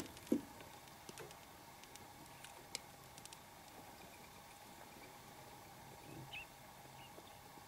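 Quiet outdoor ambience with a faint steady hum. A soft thump comes just after the start, a few faint clicks follow around three seconds in, and a short bird chirp sounds a little after six seconds.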